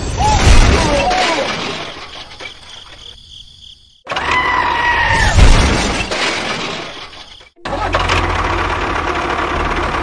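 Two crashing, shattering sounds, one at the start and one about five seconds in, each fading away over a couple of seconds; then, from about three-quarters of the way through, a small motor running steadily with a low hum.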